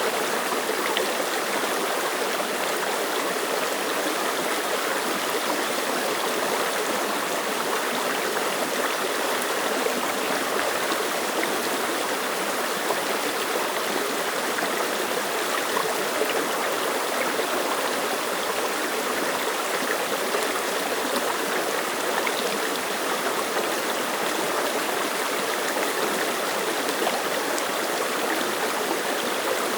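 Mountain stream running steadily over rocks, an even, unbroken rush of flowing water.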